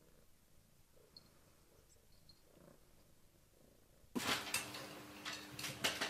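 A cat purring softly and steadily, with a couple of faint high squeaks. About four seconds in, a much louder stretch of knocks and clatter over a steady low hum suddenly takes over.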